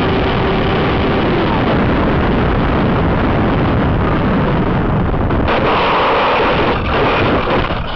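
Loud, steady rush of wind and motor noise overloading the tiny microphone of a dice camera mounted under an RC plane coming in to land. From about five and a half seconds in the noise turns harsher as the plane rolls along the gravel runway.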